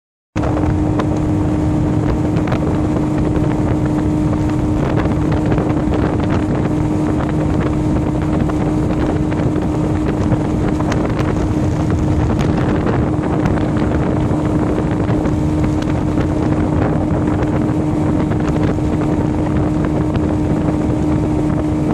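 A bass boat's outboard motor running steadily under way, a drone that holds one pitch, with wind buffeting the microphone.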